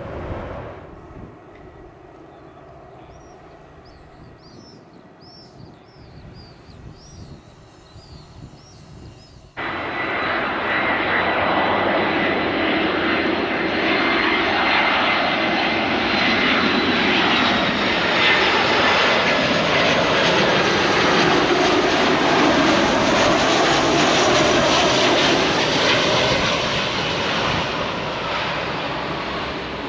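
Airbus A319's CFM56 jet engines: after a quiet stretch, a loud, steady jet roar starts abruptly about ten seconds in, with a high engine whine running through it, and stays loud to the end.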